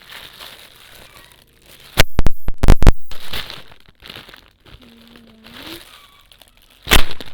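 Parcel packaging being crinkled and torn open by hand, with a burst of loud, sharp crackles about two seconds in and another near the end.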